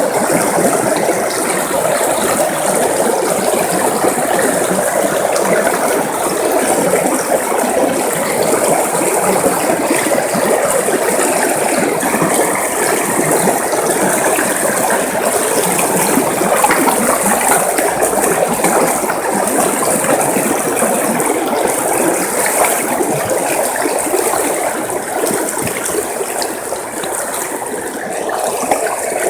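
River water flowing steadily, a dense, even rush with a fine, busy texture.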